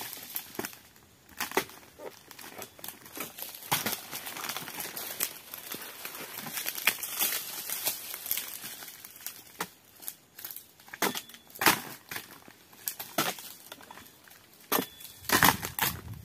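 Footsteps crunching over dry, cut oil palm fronds and leaf litter: irregular crackles and snaps, with a cluster of louder snaps near the end.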